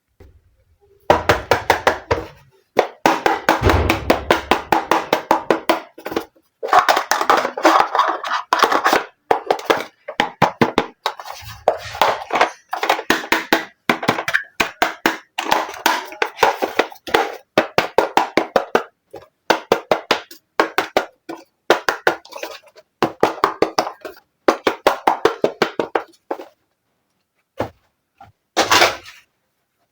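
Small hard plastic toy pieces clicking, tapping and clattering against each other as they are handled, in rapid runs of many clicks broken by brief silences.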